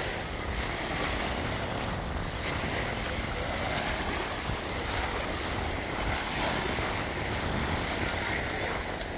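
Wind buffeting the phone microphone over the wash of sea waves, with a faint high-pitched drone running underneath.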